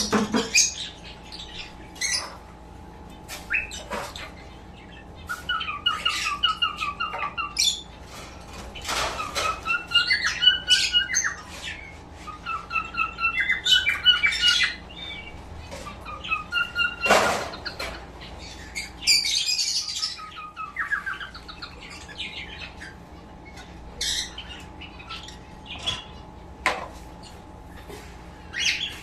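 Small caged pet birds chirping and squawking in quick, repeated bouts, with many short sharp clicks scattered among the calls. A faint steady hum runs underneath.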